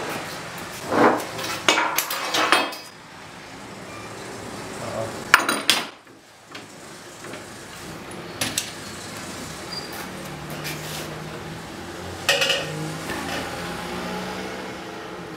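Several sharp metallic clanks and knocks: a steel C-clamp and hand tools being handled and set down on a wooden worktable, the loudest clusters about a second in and again about five seconds in.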